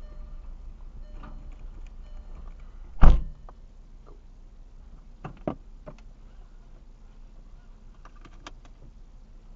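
A car door shutting with one loud thump about three seconds in, followed by a few lighter clicks and knocks inside the cabin, over a low steady hum.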